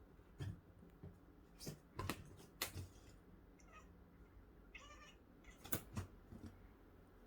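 Domestic cat making odd vocal sounds as it works up to an attack: a scattering of short, sharp clicks or spits, and one brief pitched chirp about five seconds in.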